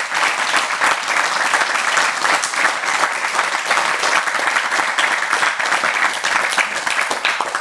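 A small group of people applauding with steady hand-clapping.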